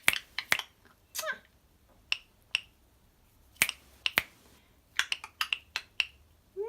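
Rainbow lorikeet making sharp clicking noises: single clicks and a quick run of clicks. There is one short chirp about a second in.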